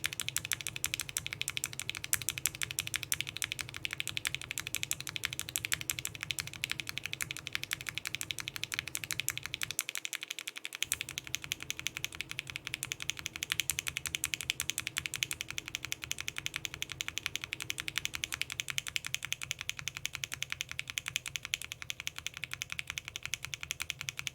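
Rapid, continuous typing on a mechanical keyboard fitted with Gateron Ink linear frankenswitches on UHMWPE stems, first with Alpaca top housings. After a brief break about ten seconds in, the typing continues with NK Cream top housings.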